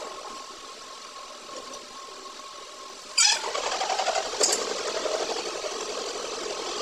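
Metal lathe running as it turns a steel excavator track roller shaft, at first with a steady hum and whine. About three seconds in the cutting tool bites with a sudden harsh scrape, scrapes again a second later, and the cut goes on louder and rougher.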